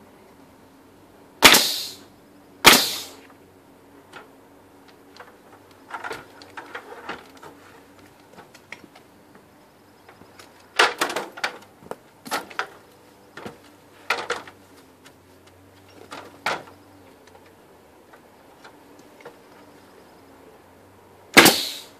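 Pneumatic finish nail gun firing twice, about a second apart, and once more near the end, each a sharp loud shot as a nail is driven into the overhead framing. In between, lighter knocks and clatter as the stepladder is shifted along the wall.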